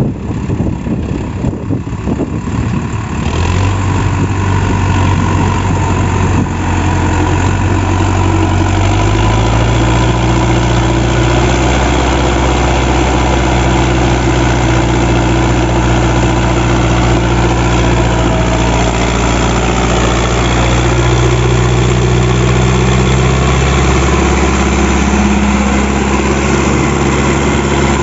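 Sonalika DI 750 III tractor's diesel engine running under load as the tractor and its loaded trailer struggle through deep wet mud. The engine note steps up in pitch about a third of the way in and shifts again near the end.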